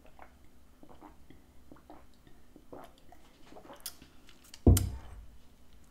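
Faint wet mouth sounds of drinking and swallowing, with small clicks and smacks. Near the end comes one loud thud on the table.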